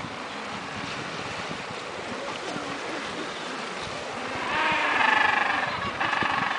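Wind on the microphone over small waves washing on a pebble beach; about four and a half seconds in, a gentoo penguin gives a loud, harsh braying call in two parts.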